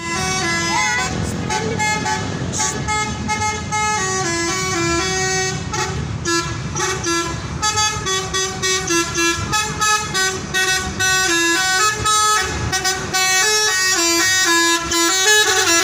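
Basuri telolet musical horn on a tour bus playing a tune: a string of quick horn notes stepping up and down in pitch, over a low engine rumble.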